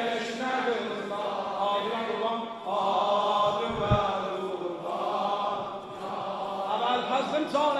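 Male voice chanting a melodic Azerbaijani-Turkish Shia mourning lament (mersiye), with long held, wavering notes. There is a single low thump about four seconds in.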